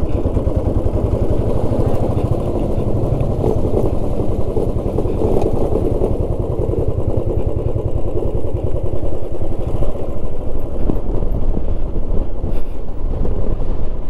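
Motorcycle engine running steadily while the bike is ridden, its firing pulses rapid and even.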